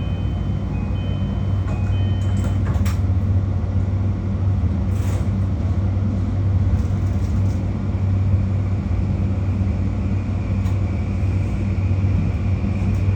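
JR Kyushu 821 series electric train stopped at a platform with a steady low hum. In the first couple of seconds a two-tone door chime sounds and a few clunks follow as the doors shut. Near the end the traction motors begin to whine upward in pitch as the train starts to pull away.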